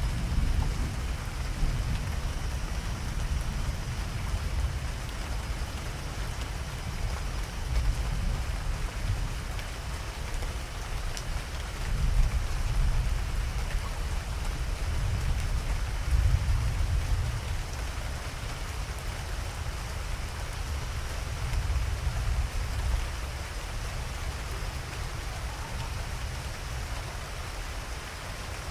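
Steady rain falling, with a low thunder rumble underneath that swells a couple of times and fades toward the end.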